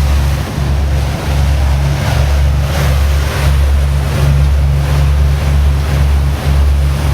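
Cruise boat under way: its engine runs as a steady low drone, with water rushing past and wind across the microphone.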